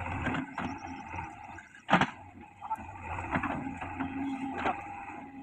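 JCB 3DX backhoe loader at work: its diesel engine runs under a steady low rumble, with scattered knocks and one sharp, loud clank about two seconds in.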